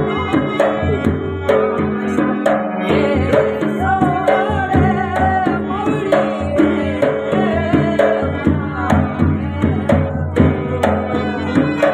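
Rajasthani Manganiyar folk song: singing with a steady drum beat and melodic instrumental accompaniment.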